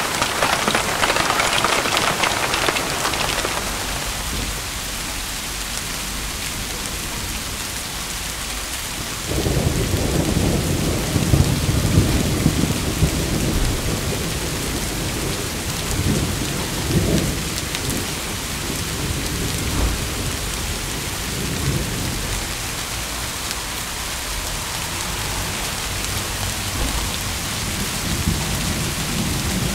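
Steady rain. A roll of thunder sets in suddenly about nine seconds in, rumbling and swelling for about twelve seconds before fading back under the rain.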